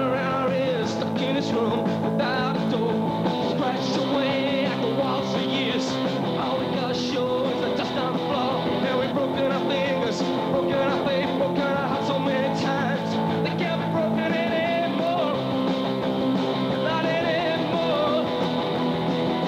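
Post-punk rock band playing live: drums, bass and guitar under held keyboard chords, with the singer's voice over them in places. Heard through a worn VHS recording.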